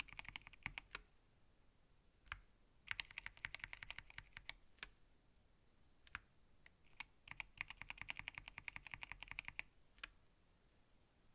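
SteelSeries Apex Pro Mini Wireless keyboard, with magnetic OmniPoint switches, being typed on. There are three quick runs of key clicks with a few single keystrokes between them.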